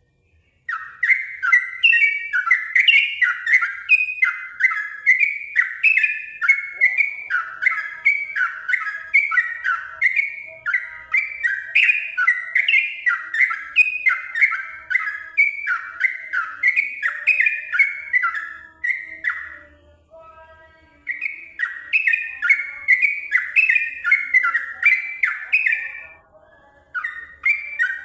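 Yellow-vented bulbul singing a fast, continuous run of short falling notes, two to three a second, with two brief breaks in the second half.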